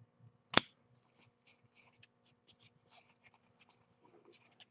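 Diamond Kings baseball cards being handled and slid against one another, a faint papery scuffing, with one sharp tap about half a second in.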